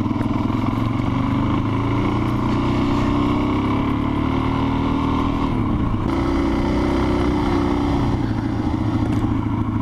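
Adventure motorcycle engine running while riding, its pitch climbing slowly, dropping briefly about six seconds in, then holding steady.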